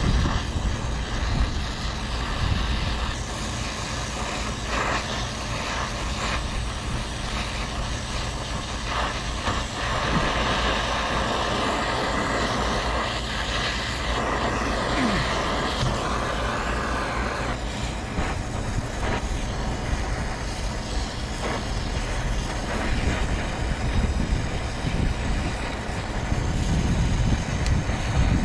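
Brazing torch flame hissing steadily as it heats the copper refrigerant line joints at the condenser's service valves to unsweat them, with wind buffeting the microphone as a low rumble.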